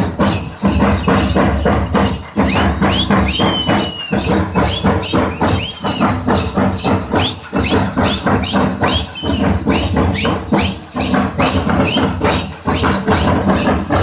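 Gussadi dance music: drums beaten in a fast, even rhythm of about four beats a second, with bright jingling over every beat. Short high sliding notes come in over the first half.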